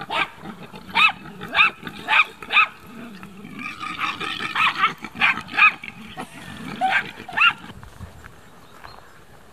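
Animals calling: about a dozen short, high yelps, each rising and falling, over low grunting. The calls stop about three-quarters of the way through.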